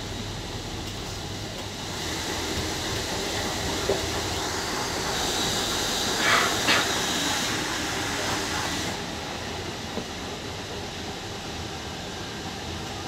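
Hamburg U-Bahn DT3-E train running on the track, heard from the driver's cab: a rush of wheel and running noise that swells for several seconds, with a thin high squeal and two short sharp sounds about halfway through, then settles quieter.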